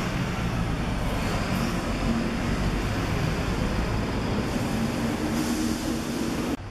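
Diesel city bus engine running with a steady low rumble as the bus pulls away; the sound cuts off abruptly near the end.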